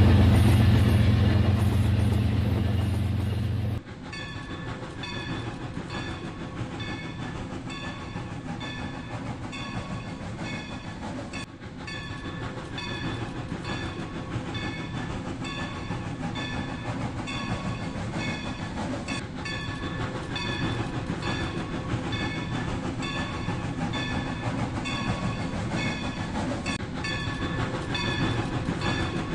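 Toy train running, with train sounds. A loud low hum cuts off abruptly about four seconds in, giving way to a steady, quieter rattling run with a faint regular repeating pattern.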